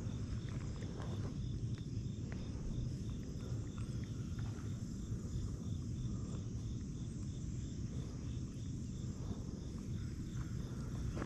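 Insects chirping in a steady regular pulse, about two or three chirps a second, over a steady high hiss and a low steady rumble, with a few faint clicks.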